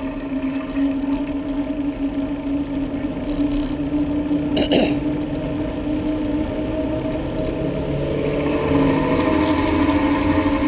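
Traffic noise heard from a bicycle riding along a city road: a steady drone with car engines and tyres close by, louder near the end. There is one sharp click about halfway through.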